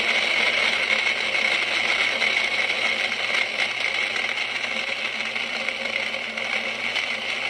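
Magic Bullet personal blender running steadily, its motor whirring with a high whine as it crushes ice for a frozen margarita.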